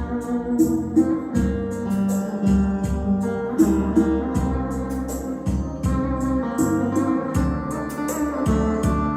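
Instrumental music with a heavy bass line, keyboard and guitar over a steady beat, played through a Kenwood SL3 MD mini hi-fi system.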